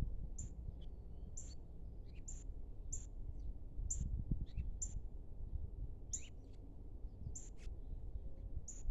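A small bird calling: short, very high chirps repeated about once a second, over a steady low rumble.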